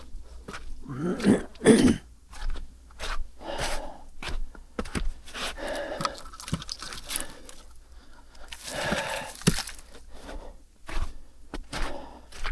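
Irregular knocks, crunches and scrapes of objects being handled, with a couple of short cough-like vocal sounds in the first two seconds.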